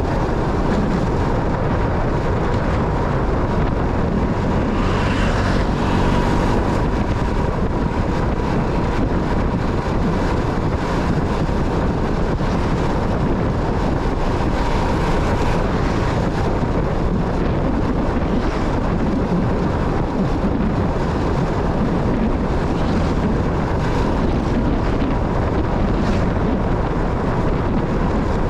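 Motorcycle running on the road with wind buffeting the microphone, a steady, loud rush of engine and wind noise.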